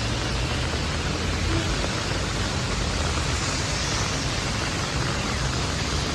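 Steady hiss of rain with a low rumble beneath it, unchanging throughout.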